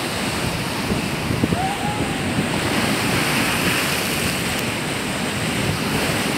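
Steady sea surf washing against the sea wall, mixed with wind gusting across the phone's microphone.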